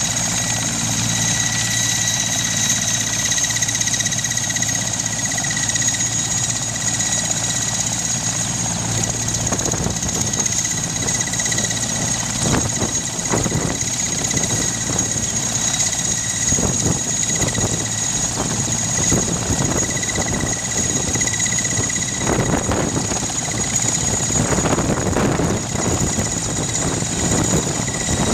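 Mil Mi-8 helicopter running on the ground with its main rotor turning. Its twin turboshaft engines give a steady high whine over the low beat of the rotor. The rotor noise grows rougher and pulses in patches from about ten seconds in.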